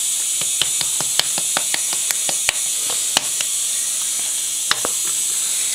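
A spice container tapped to shake out ground cinnamon: a run of light sharp clicks, about four or five a second, with a couple more near the end, over a steady hiss.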